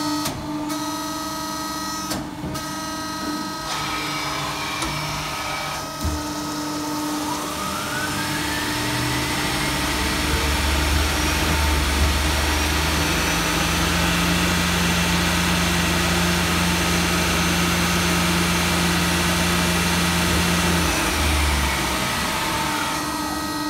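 Beaver TC-20 CNC lathe running with its carriage traversing the ways: a steady machine hum under a whine that rises in pitch about seven seconds in. A deeper drone then holds until it drops away and the whine falls near the end.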